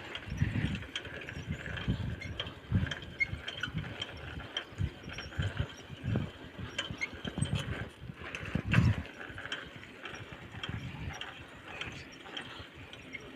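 Bicycle being ridden: mechanical clicking and rattling, with irregular low thumps and a steady hiss.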